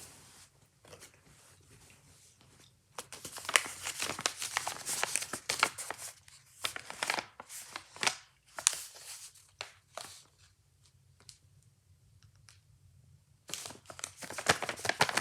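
Plastic packaging being crinkled and torn open by hand, a dense run of sharp crackles from about three seconds in until about ten seconds, with a fresh flurry starting near the end.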